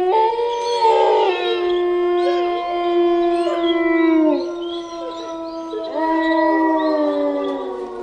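Horror ringtone of several canines howling together: long, held, overlapping howls that slide down in pitch about four seconds in, then new howls rise about six seconds in and fall away near the end.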